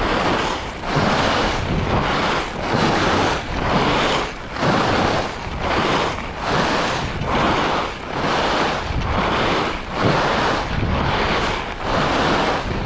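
Rossignol Hero FIS SL slalom skis carving short turns on groomed packed-powder corduroy, the edges scraping the snow in a swell of noise with each turn, about one and a half turns a second. Wind rushes over the camera microphone throughout.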